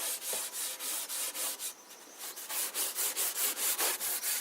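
Oil-soaked 00 steel wool rubbing back and forth over old shellacked cabinet timber, a scratchy hiss at about four strokes a second, with a brief pause about two seconds in.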